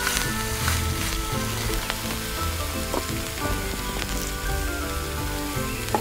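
Food frying in hot oil in a miniature pan: a steady sizzle with a few small crackles.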